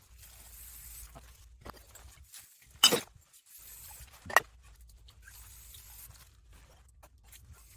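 Two sharp knocks, about a second and a half apart, as recyclable drink bottles are handled and set down during rinsing and sorting, over faint handling noise.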